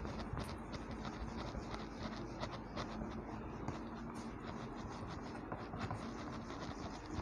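A whiteboard being rubbed clean by hand with an eraser: a steady scrubbing made of many quick, short strokes across the board's surface.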